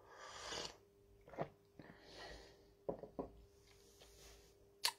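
A quiet sip of drink from a ceramic mug, followed by faint shuffling, two soft knocks about three seconds in and a sharp click near the end, over a faint steady hum.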